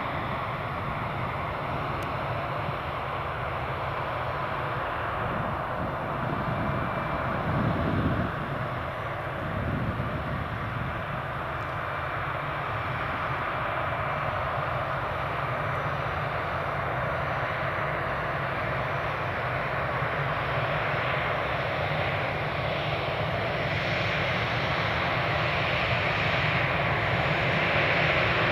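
Airbus A319-112's twin CFM56-5B turbofan engines running at taxi power as the airliner taxis past: a steady jet rumble with a faint whine, growing louder near the end as the aircraft turns toward the listener.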